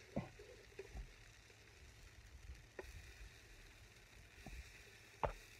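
Pancake being turned with a spatula on a round electric hot plate: a few light knocks of the spatula against the plate, the sharpest near the end, over a faint sizzle.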